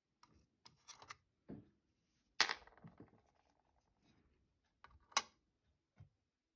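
A small handmade metal spoon lure clinks and taps against the stainless-steel platform of a digital pocket scale as it is lifted off and set back on. There are two sharp clicks, the first about two and a half seconds in with a brief ring, the second about five seconds in, with lighter taps and handling noise between.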